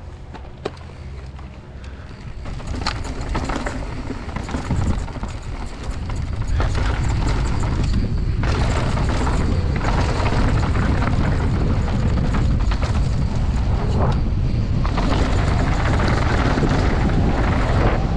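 Wind rumbling on the microphone and the rolling rumble of a mountain bike riding down a trail, with rattles and clicks from the bike. It grows louder over the first six seconds or so as speed builds, then stays steady.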